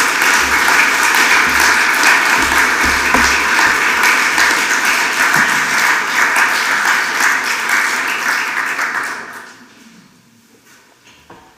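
Audience applauding at the end of a lecture, dying away about nine seconds in.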